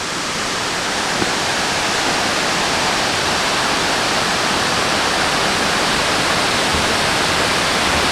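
Waterfall rushing steadily into its pool, growing louder over the first second or so, then holding even.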